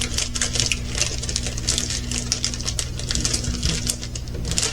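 Small plastic bags of resin diamond-painting drills being handled: quick, irregular clicking and rattling of the tiny drills with plastic rustle, over a steady low hum.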